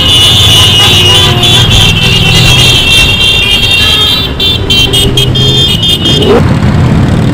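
A large column of motorcycles riding past, their engines running together, with a high steady tone over them that stops about six seconds in. One engine revs briefly just after.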